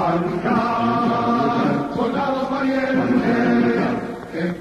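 Choir singing slow, sustained phrases, with brief breaks between phrases about two seconds in and near the end.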